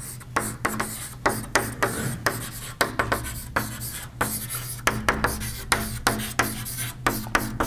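Chalk writing on a blackboard: short scratching strokes and taps, about three a second, in an uneven rhythm.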